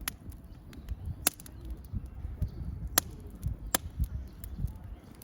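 Wood fire crackling, with a few sharp pops spaced irregularly over a low rumble.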